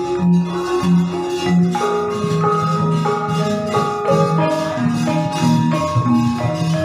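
Gamelan ensemble playing wayang accompaniment: bronze metallophones strike notes in an even beat of about two a second, their tones ringing on over one another.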